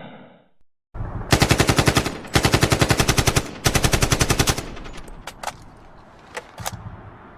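AK-47 (Kalashnikov) rifle firing on full auto: three long bursts of rapid, evenly spaced shots starting about a second in, then a few isolated sharp shots.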